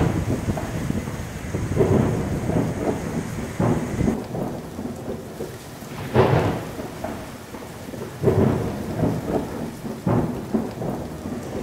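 Gusts of wind buffeting the phone's microphone in irregular rumbling bursts, over the steady rush of a swollen river in flood.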